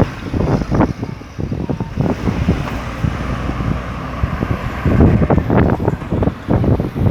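Street traffic of buses and cars running by, with wind buffeting the microphone in irregular gusts, strongest near the start and again from about five seconds in.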